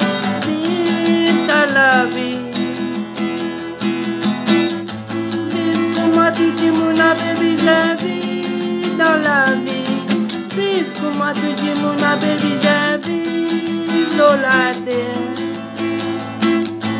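Acoustic guitar strummed in a steady rhythm, with a man singing over it in several phrases.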